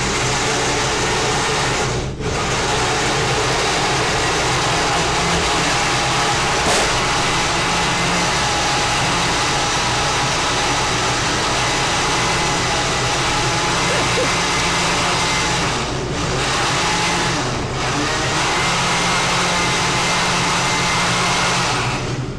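Countertop blender running steadily as it mixes fruit, juice and yogurt into a smoothie. The motor dips briefly about two seconds in and twice more near the end.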